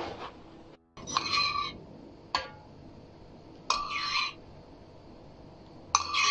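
Metal spoon scraping and clinking against a white ceramic bowl of beaten egg while egg wash is spooned out: three short ringing scrapes of about half a second each, with a single sharp clink between the first two.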